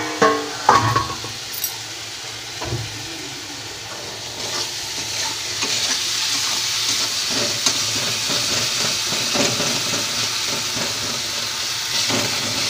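Onion-tomato masala frying in oil in a steel kadai on a high flame, sizzling while a spatula scrapes and stirs it: the masala is cooked to the stage where the oil separates. A few metal clanks come in the first second, and the sizzle grows louder from about four and a half seconds in.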